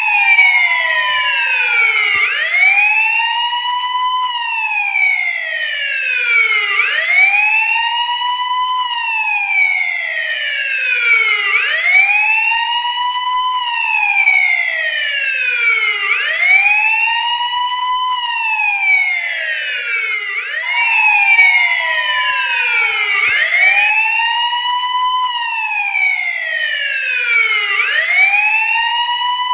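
Police siren in its wail pattern: a pitch that rises and then slides back down, repeating about every four and a half seconds.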